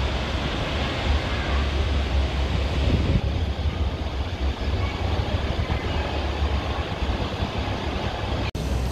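Wind buffeting the camera microphone outdoors: a fluttering low rumble under a steady hiss. It cuts out for an instant near the end.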